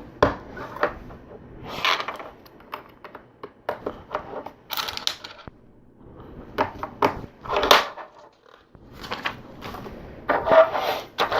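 Small plastic LEGO pieces clicking and clattering as they are handled, sorted through and pressed together, in irregular bursts with a few short pauses.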